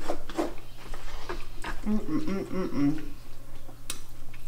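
A person eating from a burrito bowl: a fork scoops through rice and beans, with a short hummed "mmm" of enjoyment about two seconds in. A sharp click near the end, as the fork knocks the bowl.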